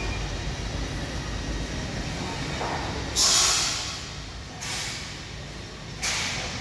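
Three short hissing bursts, the first and loudest about three seconds in, over a steady low rumble.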